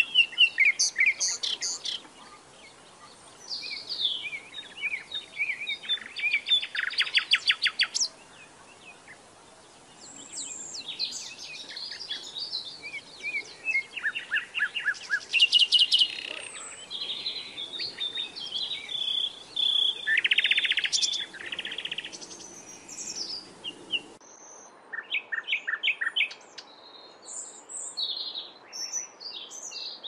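A reed warbler singing: loud bursts of varied, harsh chattering phrases and fast runs of repeated notes, broken by short pauses.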